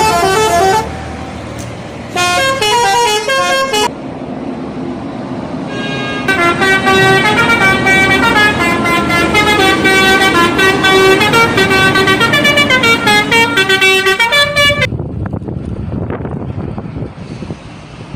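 Bus telolet horn, a multi-tone musical air horn, playing stepped melodic phrases: a brief phrase at the start, a short one about two seconds in, and a long run of changing notes from about six to fifteen seconds in. After that the horn stops, leaving a low rumble.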